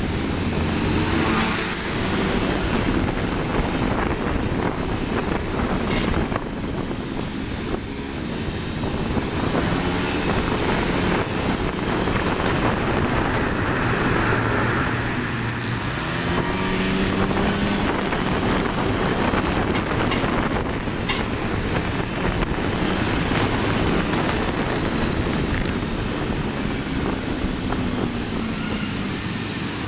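Motorcycle engine running while riding in traffic, its pitch rising several times as it speeds up and falling as it eases off, over a steady rush of road noise.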